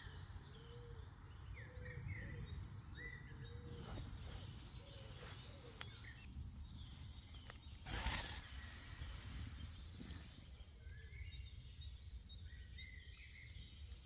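Dawn chorus of several songbirds calling and singing over a low steady background rumble, with a fast trill a little before the middle. A short burst of noise about eight seconds in.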